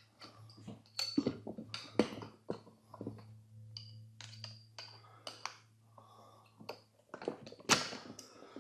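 Irregular metal clinks and knocks of tools and a steel bar on a manual tire changer as a riding-mower tire is worked off its rim, the sharpest knocks coming near the end.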